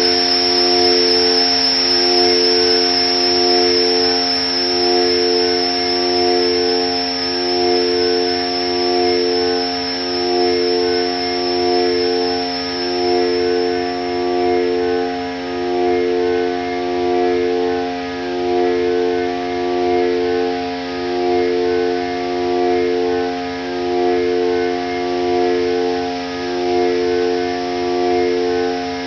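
Korg Volca Modular FM synthesizer drone: steady sustained tones over a noisy hiss, with two pitches that swap back and forth about every second and a half. A high whistle-like tone fades out about halfway through.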